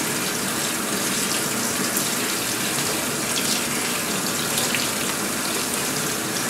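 Kitchen faucet running a steady stream of cool water onto pumpkin seeds and pulp in a stainless steel strainer basket, with a few small splashes as the seeds are rinsed by hand.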